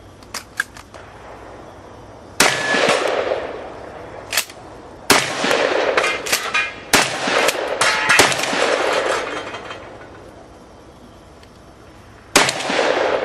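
Remington 1100 semi-automatic shotgun firing about five shots a second or more apart, each with a long fading tail, with sharp metallic clicks in between. The gun is dirty, so its bolt stays open after each shot and has to be closed by hand.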